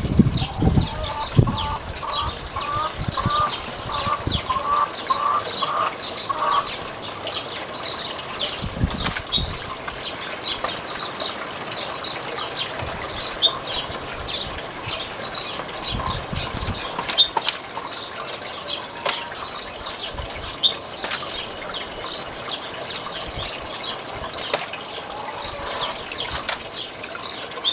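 Water gushing and sloshing in a small garden pond, with a few low thumps as the foam RC plane hull is handled in it. A small bird chirps throughout, a short high note about every half second.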